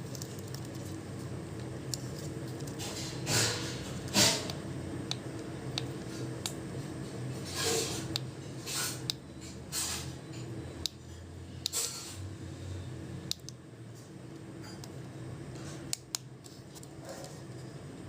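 Scattered clicks and several short scraping, rustling sounds of objects being handled at close range, over a faint steady hum.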